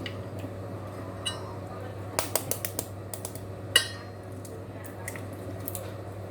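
Kitchenware clinking and tapping against a bowl: a quick run of light taps a little after two seconds in, then one sharper knock about a second and a half later, as eggs go into flour for a fritter batter.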